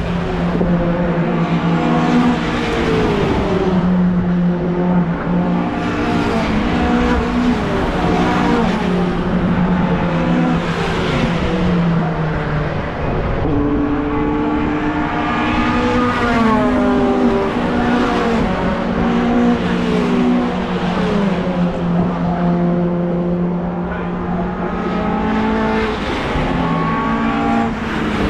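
Racing pickup trucks' engines at full speed on the circuit, several passing one after another, their engine notes climbing, holding and dropping in steps through gear changes.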